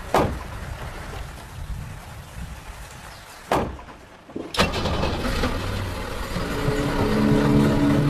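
A thump, then a click, then a car engine is started with the ignition key about four and a half seconds in and keeps running as the car pulls away. Music comes in about two seconds later.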